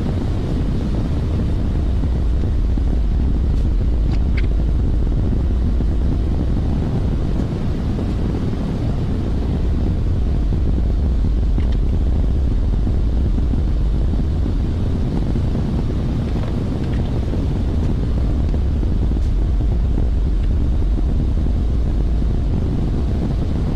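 Steady low rumble of running machinery, with a few faint clicks.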